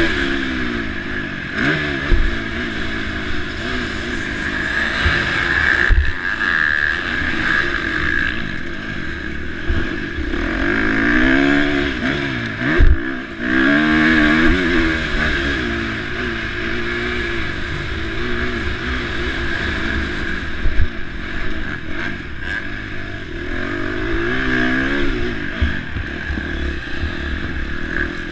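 KTM 350 SX-F four-stroke single-cylinder motocross engine, revved hard and rising and falling in pitch over and over as the bike races around the track. A few short thumps stand out, about 6, 13 and 21 seconds in.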